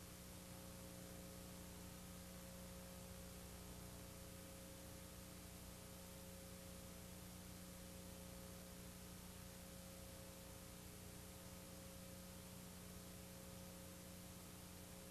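Near silence: a steady electrical hum with faint hiss, and no sound from the scene itself.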